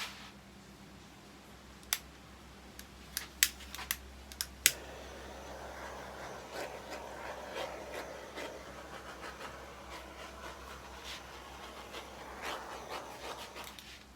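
A few sharp clicks, then a long stretch of scratching and rubbing from hand work on the piece.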